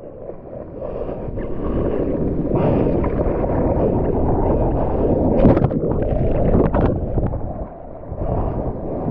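Surf water churning and splashing close around a bodyboarder's GoPro, with sharper splashes about five and a half and almost seven seconds in.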